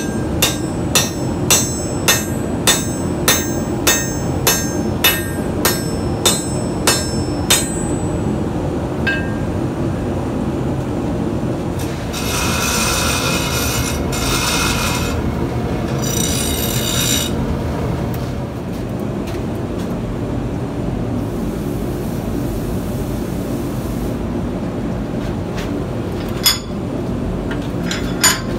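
About fourteen hammer blows on hot steel over a steel anvil, just under two a second, each with a ringing anvil note. Later a grinder cuts into steel in two spells of a few seconds, and near the end come two sharp knocks, all over a steady shop rumble.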